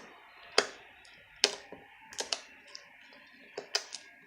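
Freshly activated homemade slime being squeezed and worked in the hands, giving sharp little clicking pops at an irregular pace, some in quick pairs.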